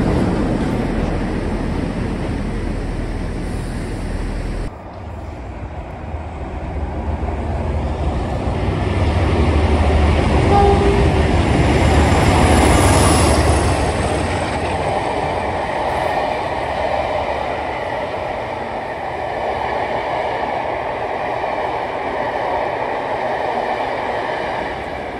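Class 47 diesel locomotive with its Sulzer V12 engine running as it hauls a rake of Pullman coaches through a station. A deep engine rumble swells to its loudest as the locomotive goes by, about halfway through, then gives way to the steadier rolling noise of the coaches. There is an abrupt change about a fifth of the way in, where one passing shot cuts to the next.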